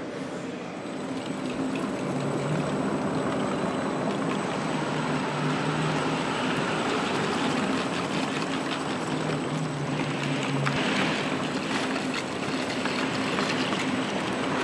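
Tyres of a Porsche Taycan spinning on the drums of a roller test stand at low speed: a steady rushing that builds over the first couple of seconds as the wheels speed up, then holds, with a low hum underneath and no engine note.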